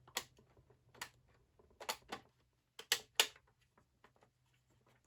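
Symbol buttons on a plastic Riddler puzzle box clicking in as they are pressed. About seven sharp clicks come at uneven spacing, the loudest cluster close together near three seconds in.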